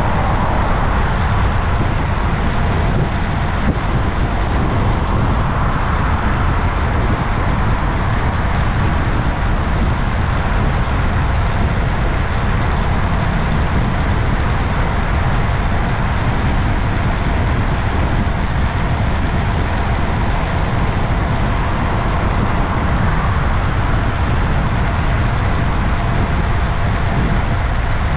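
Steady rush of wind on a motorcycle dashcam's microphone at road speed, with road and traffic noise underneath.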